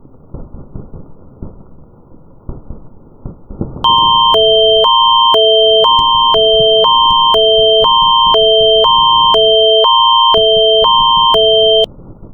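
Canadian Alert Ready emergency attention signal: a loud chord of tones switching between a high pair and a low pair every half second for about eight seconds, over a steady high tone, starting about four seconds in and cutting off sharply. Before it, a low rumble.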